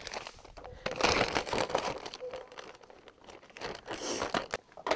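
Clear plastic bag around bare-root roses crinkling as it is pulled open and handled, in irregular bursts that are loudest about a second in and again near four seconds.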